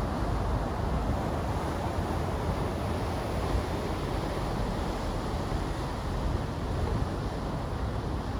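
Wind buffeting the phone's microphone: a steady, fluttering low rumble over a wash of outdoor noise.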